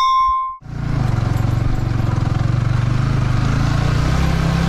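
A bell rings briefly and is cut off about half a second in, then a motorcycle engine starts up loudly and runs steadily at a fast even beat.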